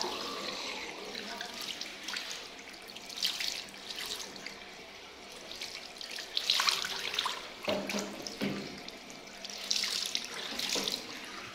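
Water running from a bathroom sink tap and splashing over hands held under the stream to feel whether it is warm, with louder splashes a few times.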